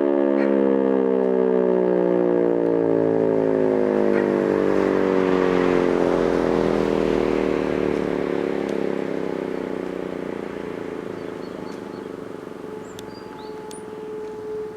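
E57 electric siren winding down after a blast of its fire-alarm test signal, its single wailing tone falling steadily in pitch and fading as the rotor slows.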